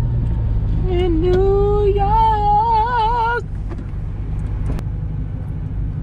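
Steady low drone of a Ford Mustang driving, heard from inside the cabin. About a second in, a voice holds a wavering note for about two and a half seconds, then stops.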